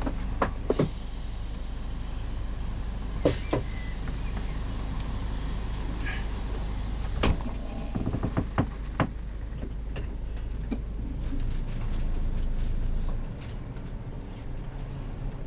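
Motorhome engine running with a steady low rumble, with sharp knocks and rattles from the vehicle's fittings, the loudest about three and seven seconds in. The engine noise swells for a moment and drops off sharply near the end.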